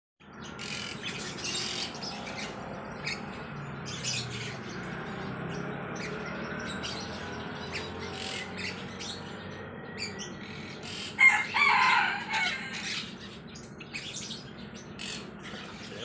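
Many caged birds chirping and tweeting in short, high calls, with one louder bird call lasting about a second and a half a little past eleven seconds in.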